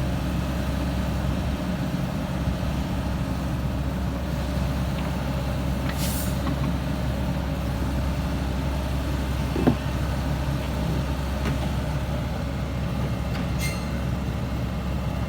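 Heavy diesel engine of an excavator running steadily under load, with a short hiss about six seconds in, a single sharp metallic knock near ten seconds, and a fainter hiss and click near the end.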